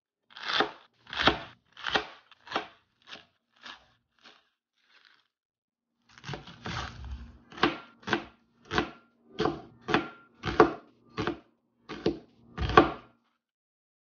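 Chef's knife slicing through an onion onto a plastic cutting board, a run of crunchy cuts about two a second. A short run of about six fading cuts, a pause, then about a dozen evenly spaced cuts.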